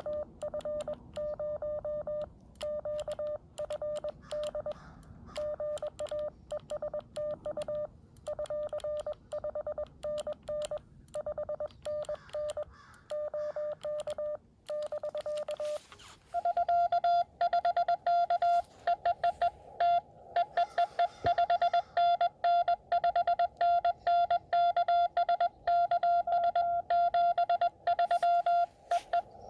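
Morse code (CW) from a Xiegu X6100 transceiver: a steady beep keyed on and off in dots and dashes. For about the first sixteen seconds one station sends at a lower pitch. Then a second, louder station at a slightly higher pitch takes over, the back-and-forth of a CW contact.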